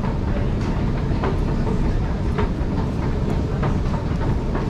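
Steady low rumble with irregular sharp clicks and clacks running through it.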